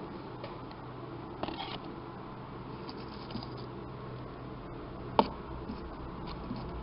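Quiet room background with a steady low hum, broken by a few small clicks and rustles of handling, the sharpest about five seconds in.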